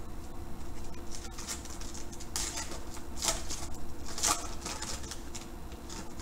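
Foil trading-card pack wrapper crinkling and tearing as hands pull it open, in several short crackly bursts, the loudest about two and a half, three and four seconds in.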